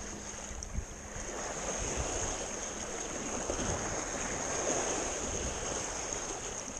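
Wind and sea noise on an open boat, swelling for several seconds from about a second in, with one short click near the start.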